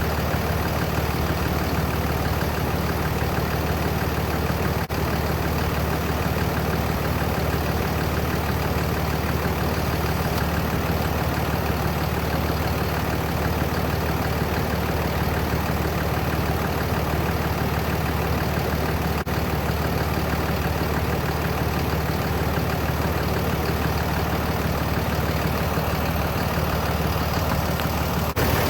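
Car engine idling steadily, a continuous low hum, while its air-conditioning system is run for a pressure check with gauges attached.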